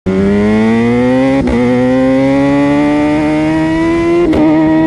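Motorcycle engine under way, its pitch climbing steadily as the bike gathers speed, with two brief clicks about a second and a half in and near the end.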